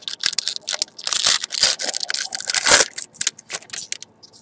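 Trading-card pack wrapper being torn open and crumpled in gloved hands: a busy run of crinkling and ripping that dies down near the end.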